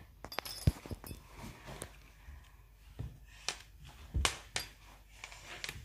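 A handful of scattered light taps and knocks, the loudest about four seconds in, as a cat paws and plays with a feather wand toy on a wooden floor beside a kitchen appliance.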